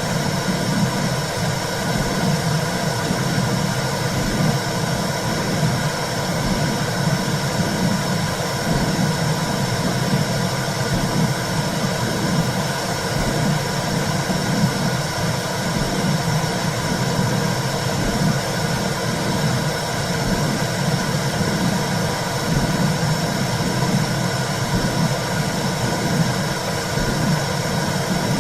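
Womb sound played to soothe a baby: a steady low rumbling whoosh that swells gently and regularly.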